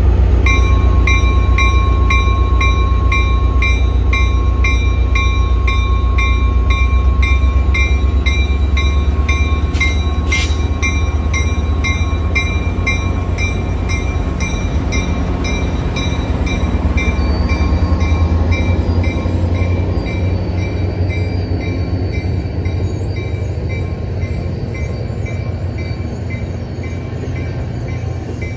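Caltrain diesel locomotive with its engine making a deep, steady rumble while its bell rings about twice a second. There is one sharp metallic clank about ten seconds in, and the sound eases off slowly toward the end.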